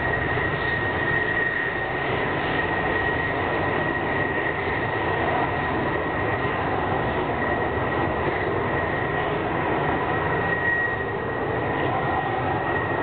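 Fighter jet engine running as the jet rolls along the runway: a steady roar with an even, high whine.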